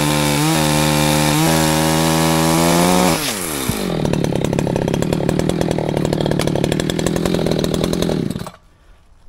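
Echo CS-620PW two-stroke chainsaw engine running at full throttle, its pitch dipping slightly as it cuts into a stump. About three seconds in the throttle is released and it falls to a fast, pulsing idle. Near the end it is switched off and cuts out suddenly.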